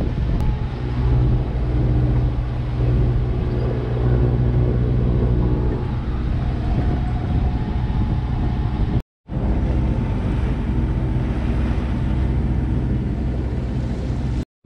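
Sailboat's engine running steadily under way, a constant low drone, with the wash of water and wind. The sound cuts out briefly twice, about nine seconds in and near the end.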